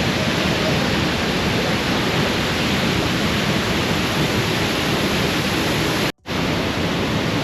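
Loud, steady rush of Looking Glass Falls, the waterfall's water crashing down without a break, except for a brief cut about six seconds in.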